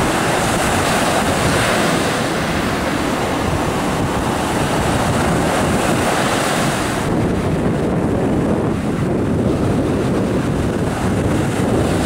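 Sea surf breaking and washing up the beach, with wind buffeting the microphone. The high hiss of the surf falls away about seven seconds in.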